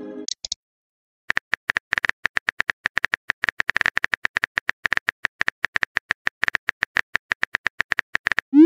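Rapid, even typing clicks from a texting-story app's keyboard sound effect, about eight clicks a second, starting about a second in. Just at the end a rising swoosh begins as the message is sent.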